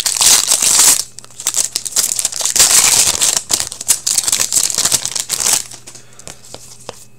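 Wrapper of a hockey card pack being torn open and crinkled by hand, in two stretches: a short burst at the start, then a longer spell of crinkling that stops about five and a half seconds in.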